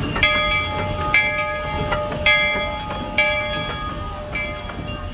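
The bell on the Denver & Rio Grande Western C-19 steam locomotive No. 340 ringing as it rolls by, about one stroke a second, four strong strokes then weaker ones, over the low rumble of the moving train.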